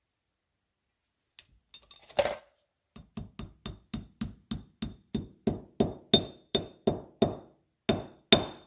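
Small hammer tapping on metal: one harder strike about two seconds in, then a steady run of light ringing taps, about three a second.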